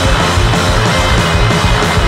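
Three-piece rock band playing a heavy song live and loud: electric guitar, bass guitar and drums.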